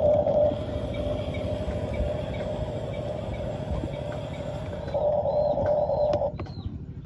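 Electric motors and gearboxes of radio-controlled construction models running, a steady drone with a rattle and a motor whine that swells louder about five seconds in, then drops back a little after six seconds.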